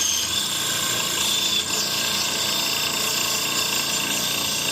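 Small 10-inch band saw running and cutting through material: a steady high whine over the blade's running noise.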